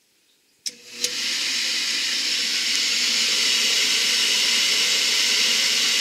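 Oil furnace burner switched on with a click; its motor spins up within half a second and runs steadily with a loud rushing hiss, driving the fuel pump as it bleeds fuel and air out of the line into a bottle.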